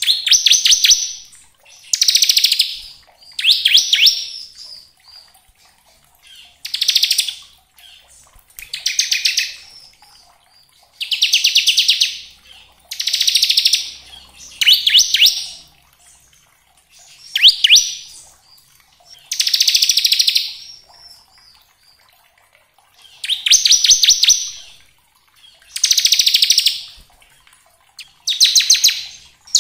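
Bar-winged prinia (ciblek) singing in its 'ngebren' style: short, fast trills of high notes, each burst about a second long, repeated roughly every two seconds with brief pauses between.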